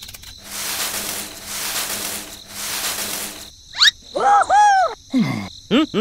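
Three swells of soft hissing noise, then a quick rising whistle and a run of high-pitched, squeaky sing-song cartoon voice calls that arch up and down in pitch.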